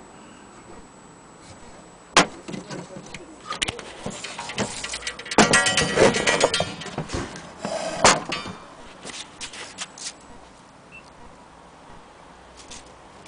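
Knocks and clicks from an old Vienna wall clock being handled, with a stretch of metallic rattling and clinking from about five to seven seconds in.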